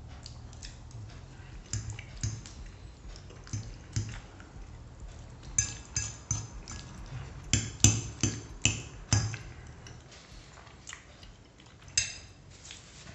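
Metal fork clinking and scraping against a ceramic plate while soft tortellini in cream sauce is eaten, with close-up chewing: a run of short sharp clinks, busiest in the middle, and a last clink near the end as the fork is laid down on the plate.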